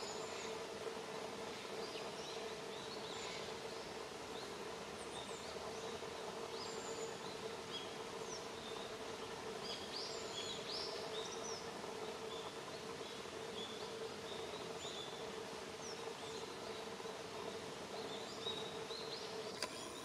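Outdoor ambience: a steady low hum and background hiss, with frequent short, high chirps of small birds calling.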